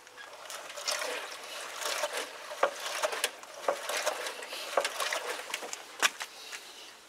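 Front forks of a Yamaha YBR125 being pumped up and down to reseat the fork seals: a rushing noise that rises and falls with each stroke, broken by several sharp clicks.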